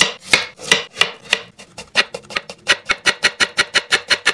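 Cheap soft Chinese cleaver, freshly sharpened, chopping a cucumber into slices on a cutting board. It makes a run of crisp knocks, slow at first and speeding up to about five a second in the second half.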